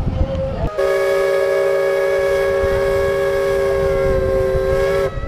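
Steam whistle of an Elbe paddle steamer, sounding several tones together in one long blast of about four seconds, with a hiss. It starts a little under a second in and cuts off suddenly near the end.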